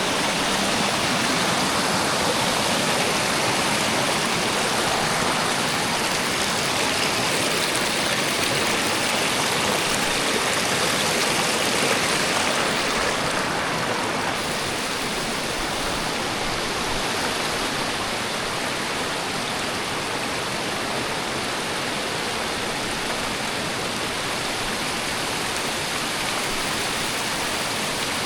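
Fast-flowing mountain water rushing steadily, a loud even roar of noise that eases a little about halfway through.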